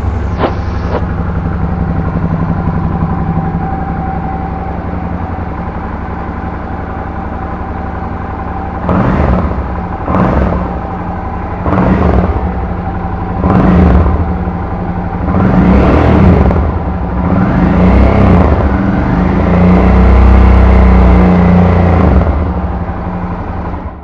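Suzuki DL650 V-Strom's V-twin engine running through a modified exhaust muffler: a steady idle, then from about nine seconds in a series of about seven throttle blips rising and falling in pitch, the later ones longer and the last held for a few seconds.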